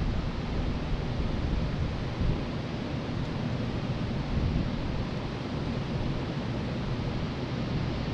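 Steady rushing air noise with uneven low rumbling as air buffets the microphone.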